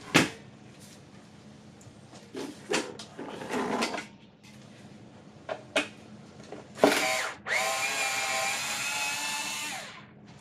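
Power driver with a #3 Phillips bit spinning out a screw that holds the pancake air compressor's pump housing to its tank. It gives a short burst about two-thirds of the way in, then a steady run of about two and a half seconds that trails off near the end. Softer knocks and rattles of the tool and housing come earlier.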